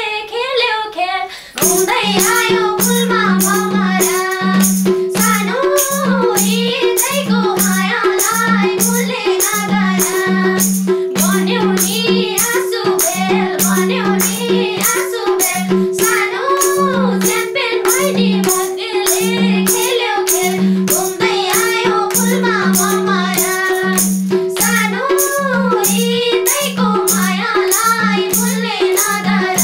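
Nepali live dohori folk song: a woman's voice sings alone at first, then about two seconds in a madal drum and a steady, fast percussion beat come in under women singing the melody.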